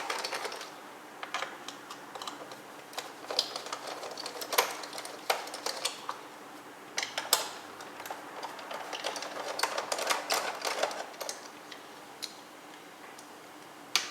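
Phillips screwdriver backing screws out of a Roomba's plastic bottom faceplate: irregular bursts of small clicks and ticks, with short pauses between.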